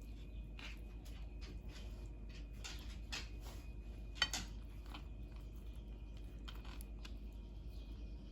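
Small kitchen handling sounds: soft scrapes, rustles and taps of hands and utensils working filling onto a soaked rice paper wrapper and rolling it, with one sharp click about four seconds in, over a steady low hum.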